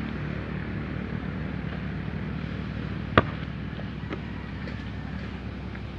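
A basketball smacks once against hands or the ground about three seconds in, a single sharp knock, with a fainter tap about a second later. A steady low hum runs underneath.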